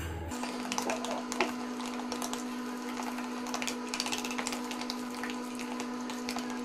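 Metal spoon briskly stirring a thick yogurt marinade in a plastic bowl: a quick, irregular run of small scrapes and clicks against the bowl, over a steady low hum.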